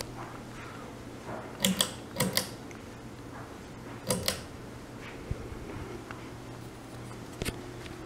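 Pull-chain switch on a running Emerson Builder ceiling fan clicking as the chain is pulled: sharp clicks in close pairs, two pairs about two seconds in and another about four seconds in. Beneath them the fan motor keeps up a steady low hum.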